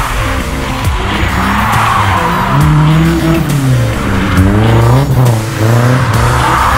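A drift car sliding through a corner: its engine revving up and down while the tyres squeal and skid, with music underneath.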